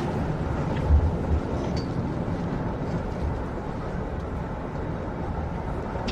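Steady low rumble of a moving passenger vehicle heard from inside the cabin, with a couple of low thumps about a second in.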